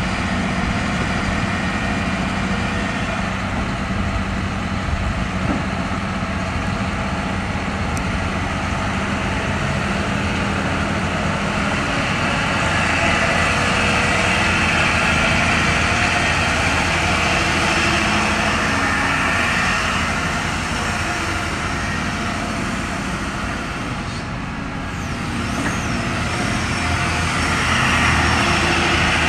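Cat 559C knuckleboom loader's diesel engine running and working the hydraulics as the boom swings and the machine slews. The sound grows louder partway through, dips briefly, then rises again near the end.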